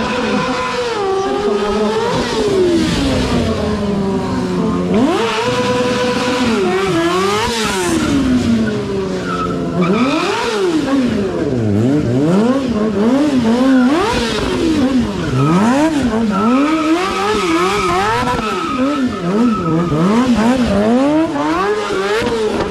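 Stunt motorcycle's engine revved hard up and down over and over. It holds a note briefly in the first seconds, then swings up and down in pitch more quickly and jaggedly from about halfway through.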